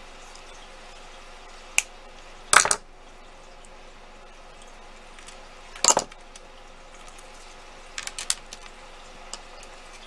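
Small metal jewelry pieces clinking as they are handled on a cutting mat: bracelet chain, clasps and jewelry pliers. A single click, a short rattling clatter near the third second, another near six seconds, then a quick run of clicks around eight seconds.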